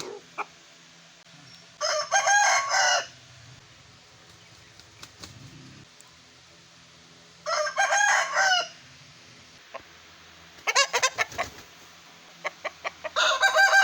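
Aseel roosters crowing: three short crows of about a second each, spaced several seconds apart, the last starting near the end. Around two-thirds of the way through comes a quick run of short, sharp sounds.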